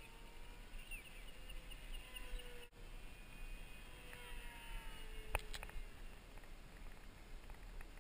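Electric motor and propeller of a Durafly T-28 Trojan RC plane whining at full throttle, high and distant, its pitch slowly rising and falling as it passes. A sharp click sounds a little past five seconds in.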